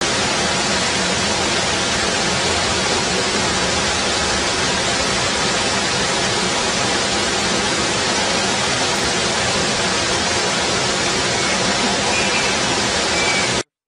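Loud, steady hiss like static, even across all pitches, cutting in and out abruptly.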